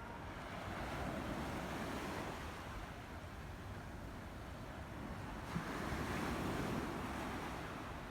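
Sea waves washing in, swelling twice, with wind buffeting the microphone.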